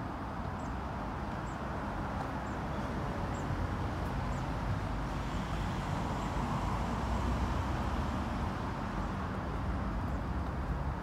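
Steady street background of distant traffic hum, with a faint high chirp repeating about once a second through the first half.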